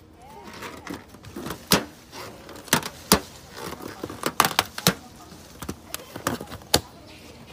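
A rubber balloon being gripped and bitten by a macaque: a string of irregular sharp taps and rubbing clicks from the rubber, with a brief squeak just after the start.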